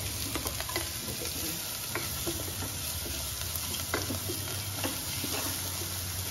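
Chopped vegetables sizzling as they sauté in hot oil in a metal pot. A wooden spatula stirs them, with irregular light scrapes and clicks against the pot.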